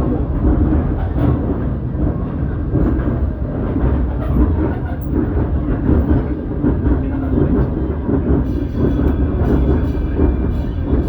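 Steady rumble and rattle of a park railroad's passenger coaches running along the track, heard from aboard the train.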